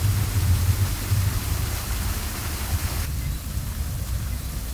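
Steady rushing of a waterfall: an even hiss with a low rumble underneath, the hiss dropping a little about three seconds in.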